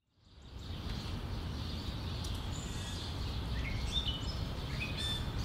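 Outdoor ambience fading in over the first second: a steady low rumble and a high hiss, with a few short bird chirps in the second half.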